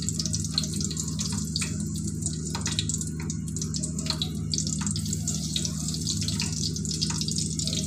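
Eggplant slices frying in hot oil in a pan: a steady sizzling hiss with frequent small crackles and pops, over a steady low hum.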